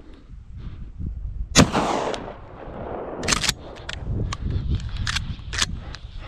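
A single shotgun shot about a second and a half in, with a short rolling echo trailing after it, followed by several shorter sharp noises.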